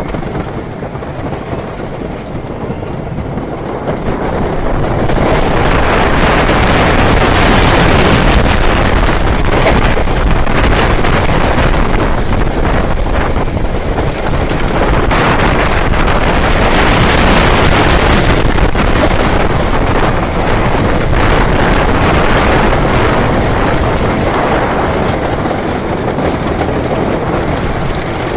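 Wooden roller coaster train running along its track, rattling with heavy wind noise on the microphone. The noise gets much louder about four to five seconds in as the train picks up speed, and it stays loud to the end.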